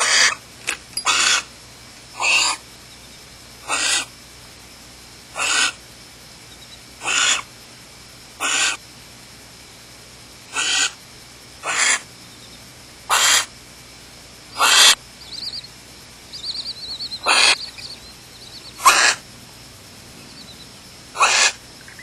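Barn owl nestlings giving their begging hiss: short, rasping calls about half a second long, repeated roughly every one and a half seconds. A quieter, rapid chittering joins between about 15 and 18 seconds in.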